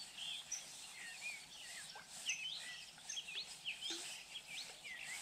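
Several small birds chirping and singing, many short high notes overlapping, some rising and some falling.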